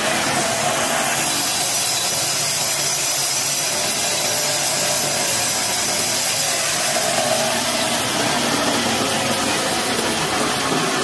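The 7 hp four-stroke petrol engine of a Kawasaki VMTB70 walk-behind flail mower running steadily at a constant speed.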